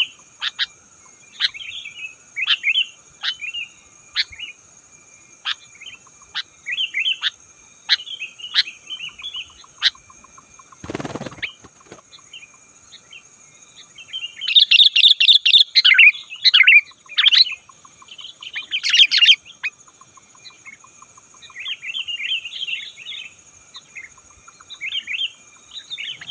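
Sooty-headed bulbul (kutilang) singing: short, bubbly chirped phrases repeated every second or so, becoming louder and busier about halfway through. A single dull bump comes a little before the loud stretch.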